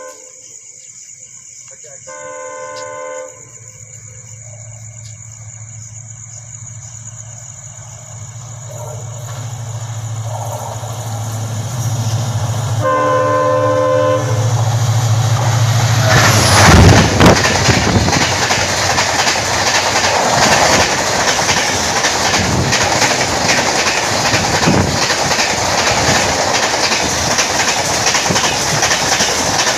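Indian express train running through a station at about 120 km/h. The locomotive horn sounds briefly at the start, again for about a second shortly after, and once more about 13 seconds in, while the low hum of the approaching locomotive grows. The locomotive passes, loudest, around 16–17 seconds in, and then the coaches rush by in a steady roar with the clickety-clack of wheels over rail joints.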